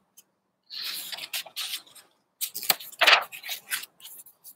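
Pages of a hardcover picture book being turned and handled by hand. It is a run of paper rustles and sharp crinkly clicks lasting about three seconds, starting just under a second in.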